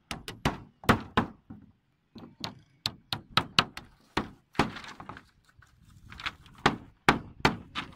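Hammer driving nails into thin wooden slats on a wooden frame: quick runs of sharp strikes, about three or four a second, with a short pause around two seconds in. Loose wooden slats clatter as they are handled near the middle.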